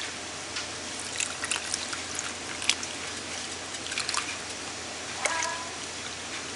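Water poured from a cup into the side of a pot of fish in sauce, trickling steadily with scattered small splashes and drips.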